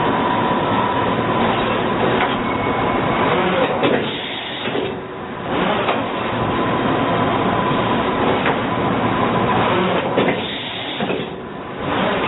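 Doosan NHP 4000 horizontal machining center running: a loud, steady mechanical noise with a faint steady whine and a few sharp clicks, dropping quieter twice for about a second and a half each.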